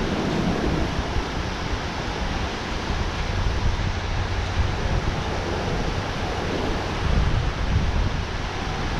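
Water rushing steadily over a dam spillway, a continuous loud roar of noise, with wind rumbling on the microphone.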